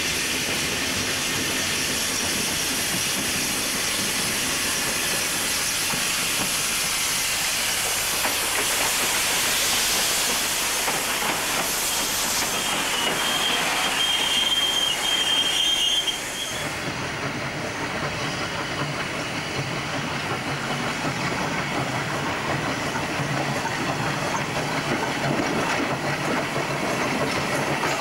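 Steam locomotive running with a steady hiss of steam and the clatter of its wheels and rods on the rails. A thin high squeal lasts a few seconds around the middle, and the sound changes abruptly just past halfway.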